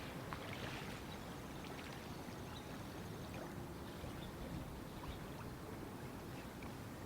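Steady low outdoor background noise with a few faint ticks scattered through it.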